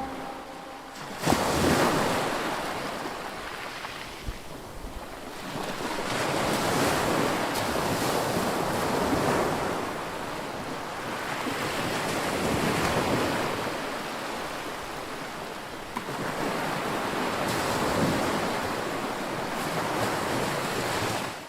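Ocean surf: waves washing in and drawing back, swelling about every five seconds, fading out at the end.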